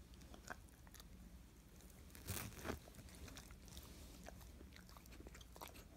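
A dog crunching and chewing a hard treat, with the loudest crunches a little over two seconds in, then lighter chewing clicks.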